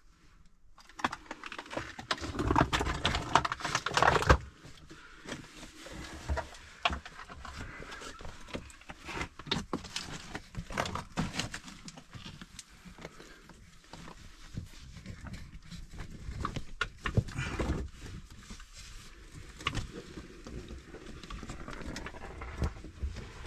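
A long train rolling past, its wheels and cars clacking and knocking in an irregular stream of sharp clicks, louder for the first few seconds.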